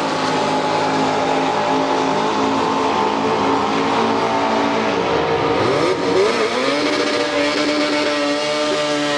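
Engines running steadily, a low droning note whose pitch slides down and back up about six seconds in, then holds.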